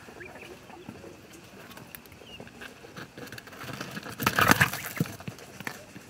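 Quail moving about on sand and cardboard: light pattering and scratching steps with a few faint chirps. A louder scuffling noise lasts about half a second a little past four seconds in.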